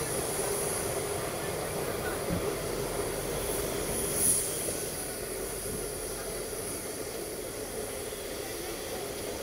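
Narrow-gauge train running on the track, a steady rumble with a thin high squeal from the wheels that swells briefly about four seconds in.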